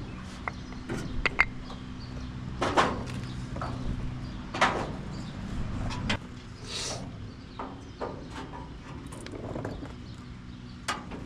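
Scattered knocks, clicks and scrapes of hand tools and metal parts as the old body blocks are worked out from between the body and frame of a 1928 Ford Model A. Two of the knocks, a few seconds apart, are louder than the rest. A steady low hum runs underneath.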